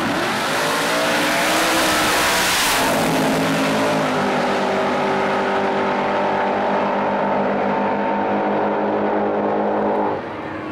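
Two super stock drag cars launching at full throttle and running side by side down the strip. The engine pitch climbs over the first few seconds and then holds steady as the cars pull away, and the sound drops suddenly about ten seconds in.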